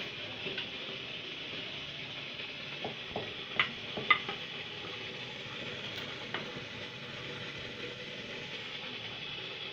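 A few light knocks and clicks of kitchen tools on a board or dish, the two loudest about three and a half and four seconds in, over a steady hiss.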